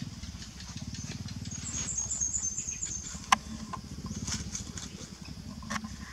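Dry leaves and sticks rustling and crackling as a puppy and a baby monkey move over them, with one sharp snap about halfway through. A quick run of high chirps comes near the start, over a steady low hum.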